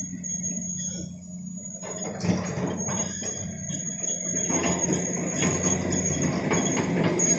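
Hitachi excavator's diesel engine running steadily; about two seconds in, a louder clattering and scraping with sharp knocks starts and keeps up, as the machine works the load of soil and rock.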